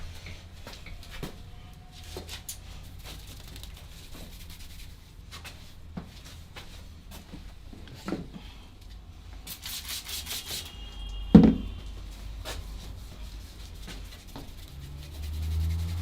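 Hands rubbing and lightly tapping on a head and skin during a barber's massage, with scattered soft clicks and a brief hiss, and one loud sharp smack about two-thirds of the way through.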